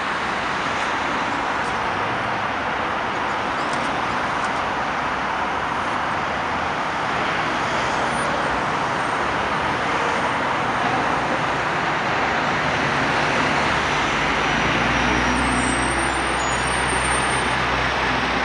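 Heavy expressway traffic noise: a steady wash of car and truck tyres and engines. About three-quarters of the way through, the low steady rumble of a heavy diesel truck engine rises in close by, with faint high squeals near the end.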